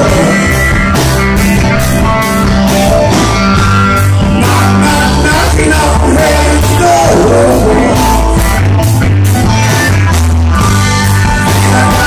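Live rock band playing loud: a male lead singer over electric guitar, bass and drums with a steady driving beat.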